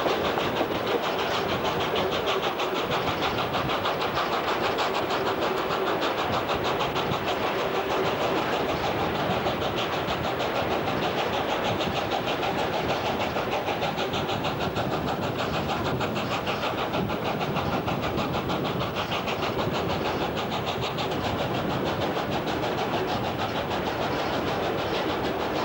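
Steam locomotive 520, a South Australian Railways broad-gauge 4-8-4, working a heavy train: a steady, loud mix of exhaust beat and carriage wheels on the rails, with a fast, even pulse, heard from an open carriage window.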